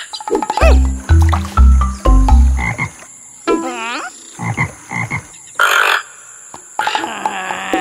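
Cartoon sound effects: a quick row of four deep low notes, then a wobbling warble that dips down and back up about halfway through, followed by short high blips and a brief noisy burst.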